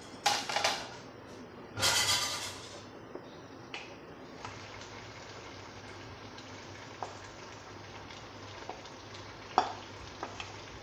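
Duck eggs going into hot curry gravy in a pan, with two short loud splashes in the first two and a half seconds. Then the gravy sizzles faintly and steadily, with a few clicks of a utensil against the pan, the loudest near the end.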